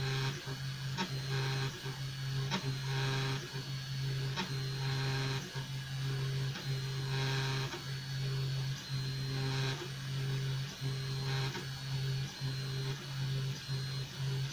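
EasyThreed X1 mini 3D printer printing: its stepper motors hum in a run of short moves, each a second or so long, broken by brief pauses, with a few small clicks.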